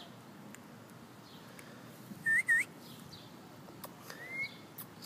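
Two quick, high whistled chirps a little over two seconds in, then a single rising whistle near the end, over a faint steady outdoor background.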